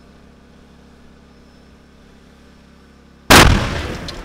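A faint steady hum, then about three seconds in a giant tractor tyre over-inflated with a high-pressure scuba compressor bursts inside a closed van. It is a single, very loud blast that tears the van's side open and fades over about a second.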